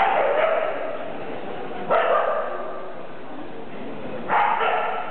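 Husky pups barking and yipping as they play-wrestle: three sharp barks roughly two seconds apart, over a murmur of people talking.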